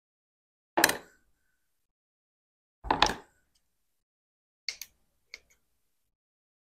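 Two sharp knocks of kitchen utensils on a plastic cutting board about two seconds apart, then a few light clicks of kitchen shears cutting raw chicken.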